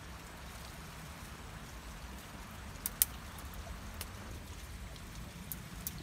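Hands groping among rocks and dry twigs at the mouth of a crab burrow, giving scattered sharp clicks and light rustling. The loudest is a pair of clicks about three seconds in, over a steady low background rumble.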